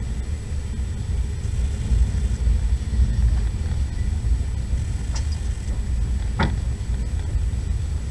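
Passenger train running, a steady low rumble heard from inside the carriage, with a brief sharp sound about six and a half seconds in.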